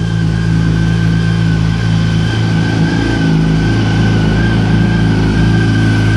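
2004 Yamaha R1's inline-four engine, fitted with an aftermarket Micron exhaust, idling steadily at an even pitch.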